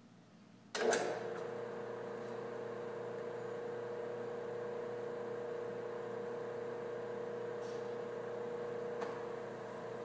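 Steady electrical or motor hum from the flow visualization table's equipment. It switches on suddenly about a second in with a sharp click and holds one steady tone with weaker overtones.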